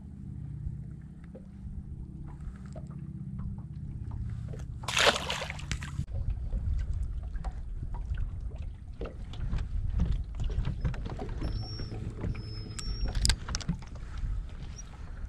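Lake water slapping against a fishing boat's hull, with a low steady hum and wind noise. A brief louder rush of water comes about five seconds in, and scattered small clicks follow.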